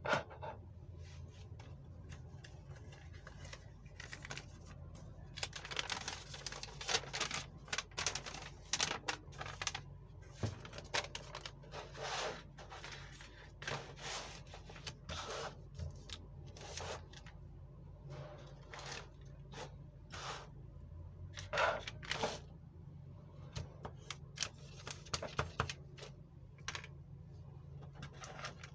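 Plastic trays of a children's art set and a sheet of paper being handled and set down on a table: irregular clicks, taps and short rustles.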